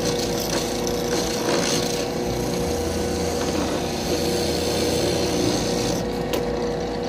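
Drill press running with a size 21 bit that is dragged sideways through a carbon fibre plate to cut a slot. The motor gives a steady hum under the scraping grind of the bit in the carbon.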